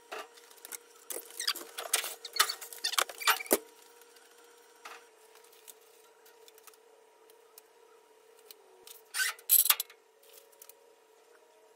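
Quick irregular clicks, taps and rattles of tools and metal parts being handled during suspension work, over a faint steady hum. The clatter is busiest over the first few seconds, goes quiet, then comes back as one short louder burst about nine seconds in.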